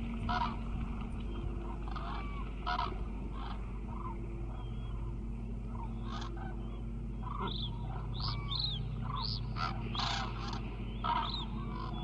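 Common cranes calling: many short calls from several birds, some overlapping, coming more thickly in the second half. A steady low hum runs underneath.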